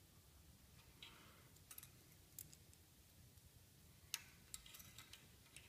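Faint, scattered clicks and taps of a thin metal lantern-generator tube being handled against a socket held in a bench vise, with a sharper cluster of clicks about four seconds in as the bent tube is lifted off.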